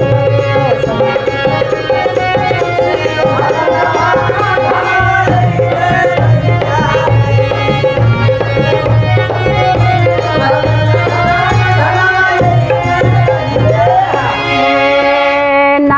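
Instrumental interlude of Bhojpuri devotional folk music: drums keep a steady rhythm under a melody line.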